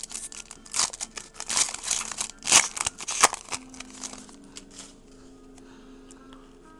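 Paper-and-foil trading-card pack wrapper crinkling and tearing as a baseball card pack is ripped open and the cards handled, in quick irregular crackles that stop about five seconds in.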